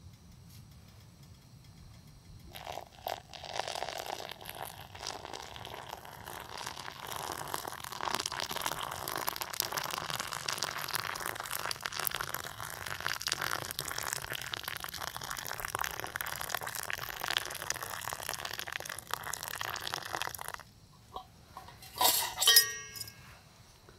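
Water poured in a steady stream from a steel pot into a small coffee pot of ground coffee, splashing and fizzing on the grounds for about eighteen seconds before stopping abruptly. Near the end come two short ringing metal clinks.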